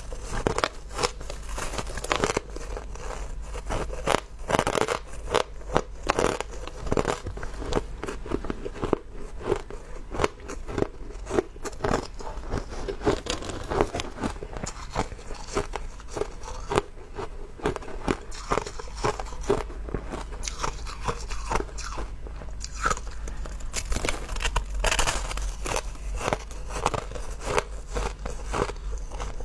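Close-up crunching of hard ice being bitten and chewed in the mouth: a continuous run of sharp cracks and crunches, several a second.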